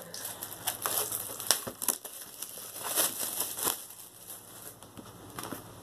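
Clear plastic shrink-wrap being torn open at a small slit and peeled off a book, crinkling and crackling in irregular bursts.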